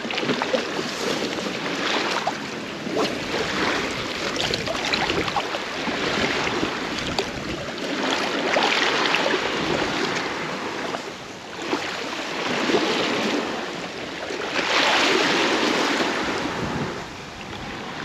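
Shallow seawater sloshing and splashing over pebbles, swelling and easing every few seconds, as a freshly caught sea bass is rinsed in it.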